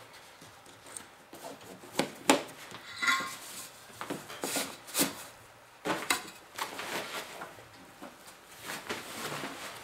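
Gear-handling noise from a nylon hunting backpack: fabric rustling with a series of sharp clicks and knocks, including a brief metallic ring, as an insulated metal water bottle is pushed into a side pocket and the pack's buckles are fastened.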